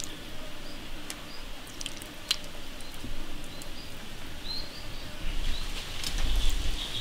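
Birds chirping in short calls over a faint steady insect hiss, with a few small clicks. The chirping thickens in the second half, and a brief low rumble comes about six seconds in.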